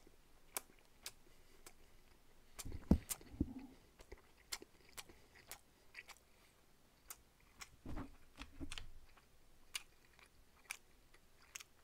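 Close-miked chewing of salmon nigiri sushi: soft wet mouth clicks and smacks at irregular intervals, louder about three seconds in and again about eight seconds in.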